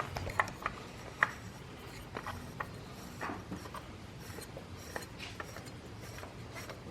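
Oil drain bolt being threaded back into a motorcycle's oil pan: scattered light metallic clicks and faint rubbing of hand and tool on the bolt, irregular rather than a steady ratchet rhythm.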